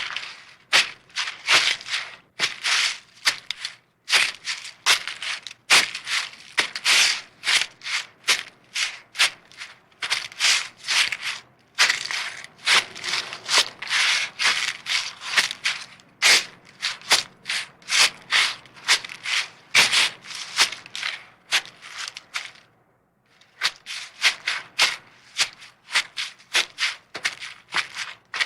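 Footsteps walking through a forest, each step crunching and rustling on the dry forest floor at a steady walking pace. The steps stop briefly about three-quarters of the way through, then carry on.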